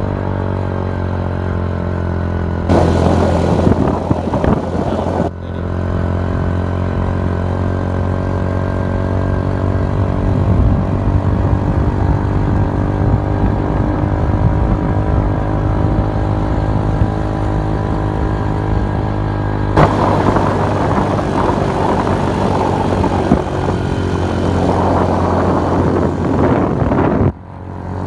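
A vehicle engine running steadily at an even pitch while driving along a road. A rushing noise, like wind on the microphone, comes in about three seconds in for a couple of seconds and again for most of the last third.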